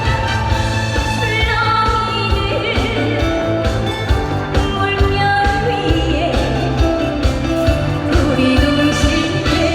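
Live trot song over a PA: a woman singing over a backing track with a steady beat.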